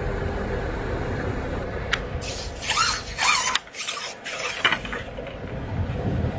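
Dry reed stalks rustling and scraping in a few short bursts about two to five seconds in, as a hooked crucian carp is hauled up out of the water through the reeds.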